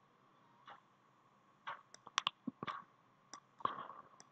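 Faint, irregular clicking of a computer mouse, about ten short clicks in a few seconds.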